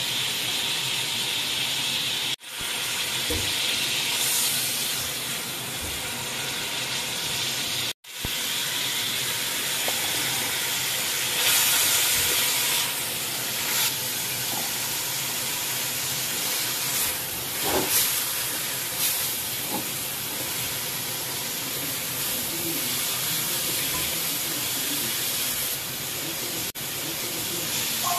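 Chicken and then sliced vegetables sizzling steadily as they stir-fry in hot oil in a metal pot, with a few short knocks of the spatula against the pot.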